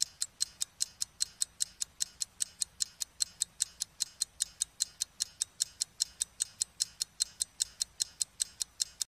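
Clock-ticking sound effect for a countdown: rapid, even, crisp ticks, about five a second.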